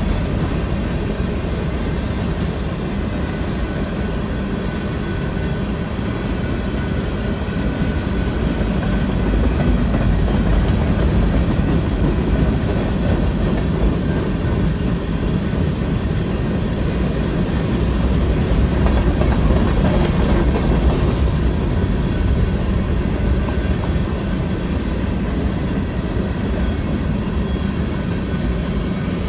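A train rolling past with a steady, heavy rumble.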